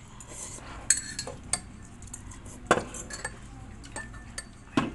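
Metal cutlery clinking against a ceramic bowl while eating noodles: several sharp, scattered taps, the loudest about a second in, near the middle and just before the end.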